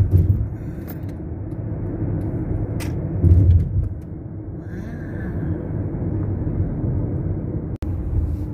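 Steady low rumble of a car driving on a city road, heard from inside the cabin: engine and tyre noise. There is a louder low swell right at the start and another about three seconds in, and the sound cuts out for an instant near the end.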